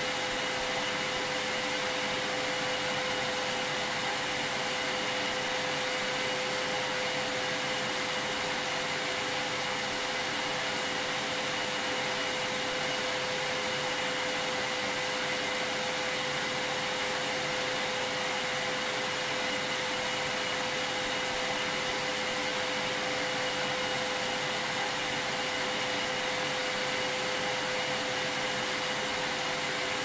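Canister vacuum cleaner running steadily: an even rush of air with a constant whine from the motor.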